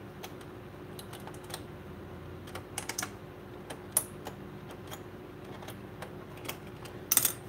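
Light, irregular clicks and taps of hard plastic as hands handle the shell and internal parts of a foam-dart toy blaster. A sharper click comes about four seconds in and a quick cluster near the end, over a faint steady hum.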